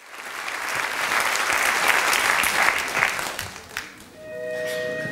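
Audience applauding, dying away about four seconds in as music starts with long held notes.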